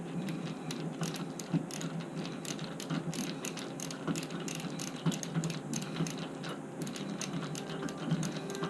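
Many light, irregular clicks and ratcheting of hand tools and metal lock parts as a door lock is worked on.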